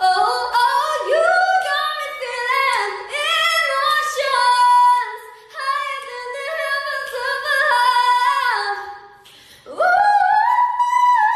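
A high-pitched voice singing unaccompanied, sliding and wavering between held notes. It breaks off briefly about nine seconds in, then comes back with a steep upward swoop.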